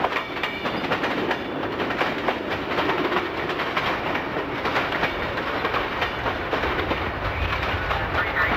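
Freight cars (boxcars and covered hoppers) rolling past close by, steel wheels clicking over the rail joints with many sharp clicks over a steady rumble.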